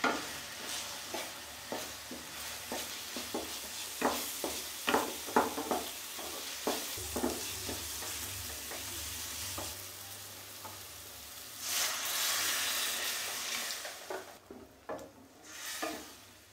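A wooden spatula stirs and scrapes tomato-onion masala sizzling in oil in a stainless steel pan, with many short scraping knocks against the pan. About 12 seconds in a loud hissing rush comes as water goes into the hot pan. After that, quieter stirring of the thin gravy follows.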